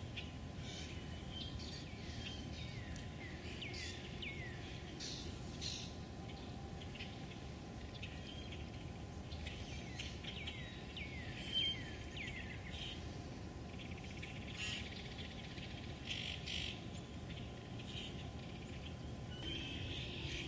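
Wild birds calling in a spring wetland: many short, falling chirps and a few brief whistles, over a steady low background rumble.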